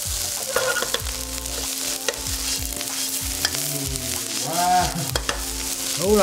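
Rice sizzling hard in a wok over high heat while a spatula stirs and tosses it, with scattered clicks and scrapes of the spatula against the pan. This loud high-heat sizzle is what goes with wok hei in Cantonese fried rice.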